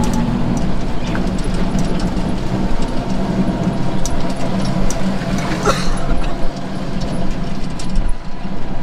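Auto-rickshaw (CNG three-wheeler) engine running steadily as it drives along, heard from inside the passenger cabin, with scattered rattles and one louder knock a little past halfway.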